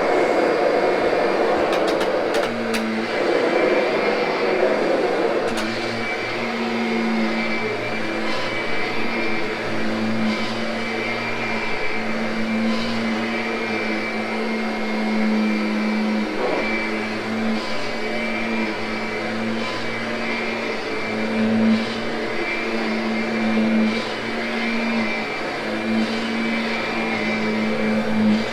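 Kirby upright vacuum running steadily, its brush roll grooming freshly cleaned Triexta carpet, with a constant motor hum and a high whine. A few sharp clicks in the first couple of seconds.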